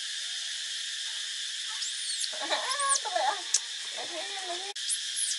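A steady high-pitched insect chorus, with a run of short squeaky calls and a few high chirps from about two seconds in to near the end.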